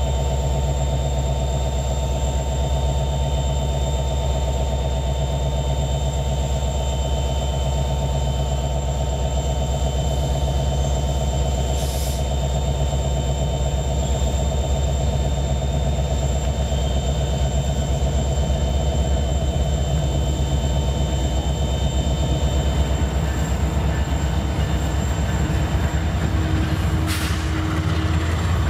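BNSF freight train's diesel locomotives approaching slowly and passing, a steady deep engine rumble with a thin steady whine above it. Two brief hisses come through, one midway and one near the end.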